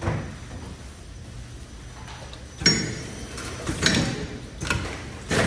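Automatic cup-container packaging machine running with a steady low hum, and several sharp mechanical clunks in the second half.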